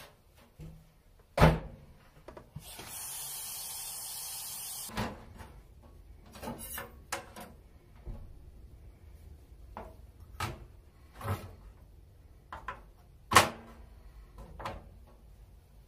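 Kitchen prep sounds on a stainless steel sink counter: a sharp knock, then tap water running steadily for about two seconds into a plastic bowl. Scattered knocks and clatter follow as utensils and a cutting board are set down.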